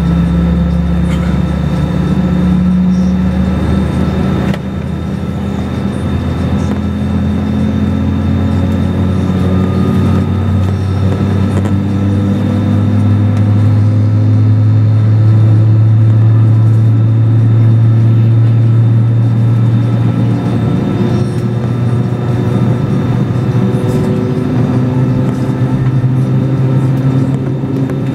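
Airbus A320-232's IAE V2500 engines running at low power, heard inside the cabin from a window seat over the wing: a loud, steady hum with several tones whose pitch drifts slowly up and down.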